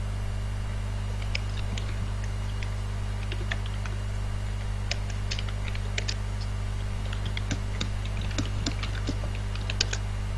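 Irregular clicking and tapping on a computer keyboard, over a steady low mains hum.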